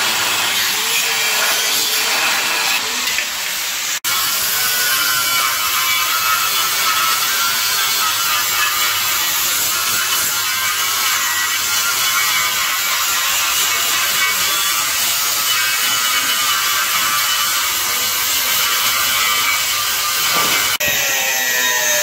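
Angle grinder cutting steel chassis metal, a harsh steady grind with a whine that wavers in pitch as the disc bites. The sound breaks off and resumes abruptly about four seconds in and again near the end.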